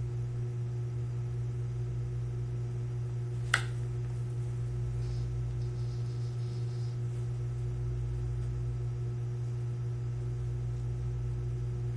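Steady low hum of room tone, with a single sharp click about three and a half seconds in.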